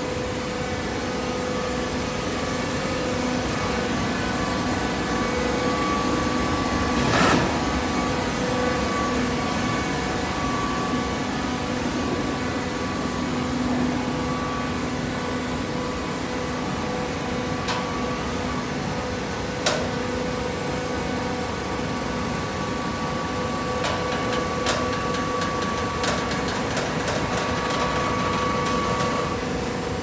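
Automatic horizontal hydraulic baler and its feed conveyor running as it compacts animal fiber, with a steady hum and whine. There is a louder knock about seven seconds in and a few sharp clicks later on.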